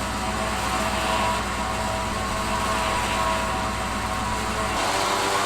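A motor running steadily, its tone shifting slightly near the end.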